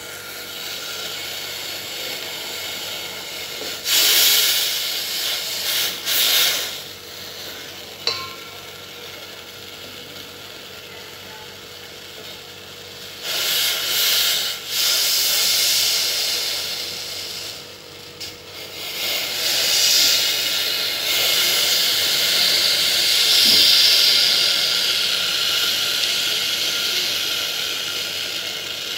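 Water running and splashing into a steel bowl onto a block of ice with slate pencils frozen in it, a rushing hiss that swells in short spells early on and runs longest through the last third.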